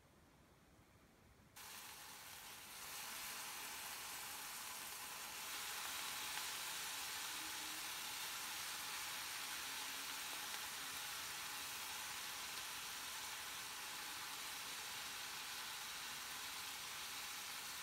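Cubed brinjal and ridge gourd hitting hot oil in a frying pan: a sizzle starts suddenly about a second and a half in and grows louder twice as more pieces go in, then settles into a steady frying hiss.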